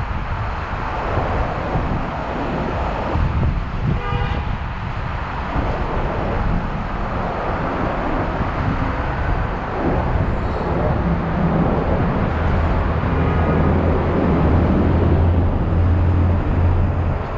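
City street traffic. A vehicle horn gives one short toot about four seconds in and a fainter one later. A low engine drone builds near the end.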